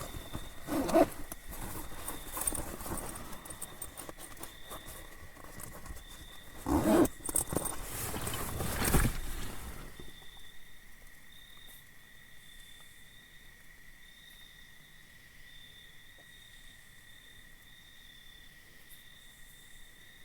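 Close rustling and handling noise with a few loud bumps for about ten seconds, then it stops suddenly. What remains is a steady background of night insects chirping, one even tone under a pulsing higher one.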